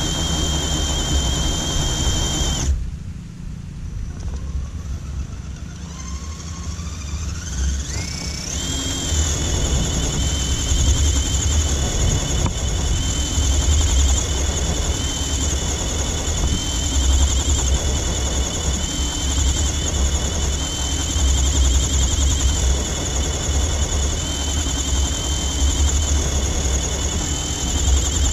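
Electric motor and geared drivetrain of an RC rock crawler whining under throttle while the truck is stuck on a dirt mound. The whine cuts back about three seconds in, then winds up in pitch over a few seconds and holds high, over a steady low rumble.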